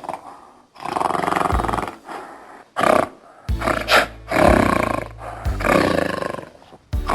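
An animal's loud calls, about four of them, each roughly a second long with short gaps between, over background music.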